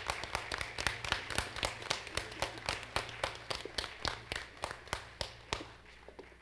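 Audience applauding, the claps thinning to a few scattered ones that die away near the end.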